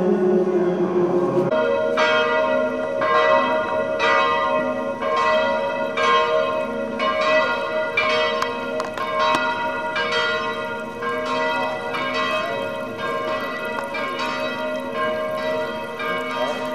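Church bells ringing in a steady peal, a ringing stroke about twice a second over a lingering hum. It starts about a second and a half in, after a short stretch of steady held tones.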